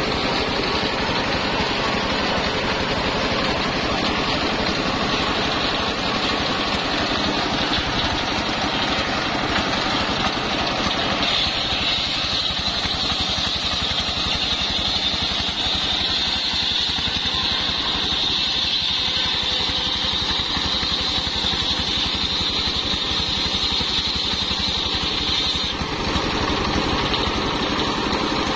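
Horizontal single-cylinder stationary diesel engine running steadily, driving an 85 cm circular saw blade. From about eleven seconds in until a couple of seconds before the end, a high-pitched whine rides over it as the blade rips through a sengon log.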